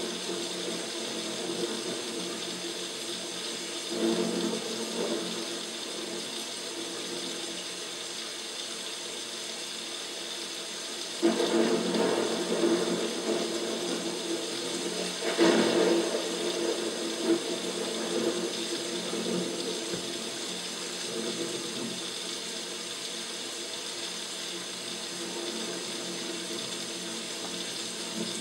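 Artificial rain in a paludarium: water from an overhead rain bar streaming down and splashing onto the plants, rocks and water below. It is a steady pour that swells louder a few times, most strongly about eleven and fifteen seconds in.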